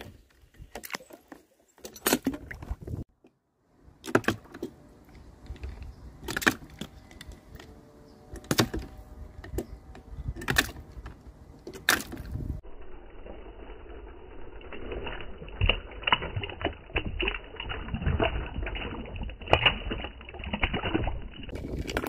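Diecast toy cars dropping off a plastic track into a tub of water, one after another: sharp splashes and clatter about every two seconds, denser clicking and splashing in the second half.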